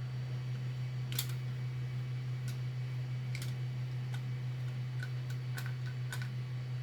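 Occasional light clicks and taps of hard plastic Nerf blaster parts being handled and fitted together, over a steady low hum.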